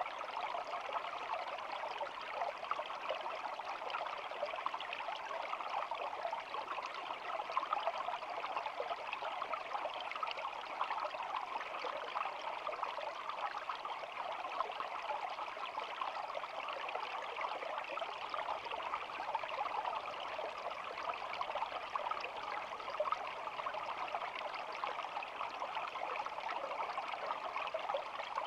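A small stream flowing and babbling in a steady, even rush with no change.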